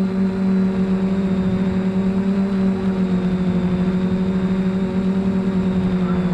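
Small multirotor drone's electric motors and propellers humming steadily as it hovers, heard through its onboard camera, one held pitch with a fast flutter in loudness.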